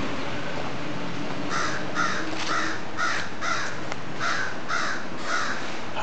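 Crow cawing: a run of about eight caws at roughly two a second, starting about a second and a half in, calling at a person it has spotted.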